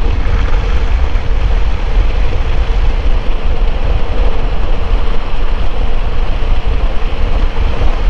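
Loud, steady wind rush on the microphone while riding a Suzuki Bandit motorcycle at road speed, with the bike's engine running underneath.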